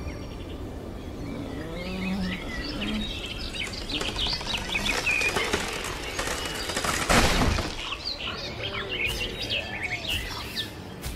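Forest birds chirping and calling, many short rising and falling calls overlapping, with a brief rushing noise about seven seconds in.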